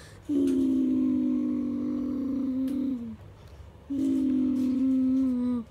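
A boy's voice holding two long, steady vocal tones, each dipping in pitch as it ends: an imitation of Chewbacca's call.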